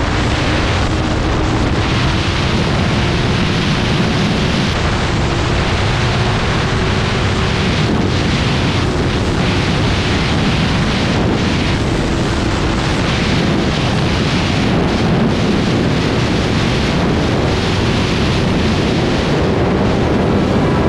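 Heavy wind buffeting on the microphone from a motorcycle at freeway speed, with the BMW S1000R's inline-four engine running steadily underneath, its note holding and slowly rising.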